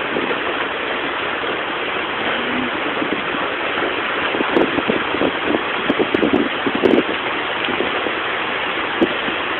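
Heavy monsoon rain pouring down in a steady hiss, with a run of irregular low bumps and crackles from about halfway through.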